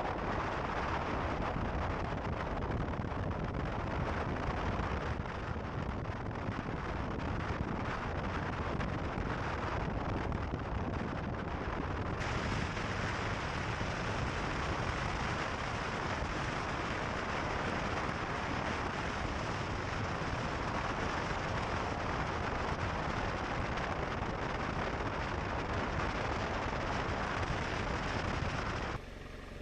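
Steady rushing noise of a moving vehicle: road and wind noise, with wind rumbling on the microphone. The hiss gets brighter about twelve seconds in.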